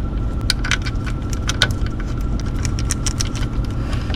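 Light metal clicks and clinks of bolts and hand tools being handled and fitted, scattered irregularly, over a steady low rumble.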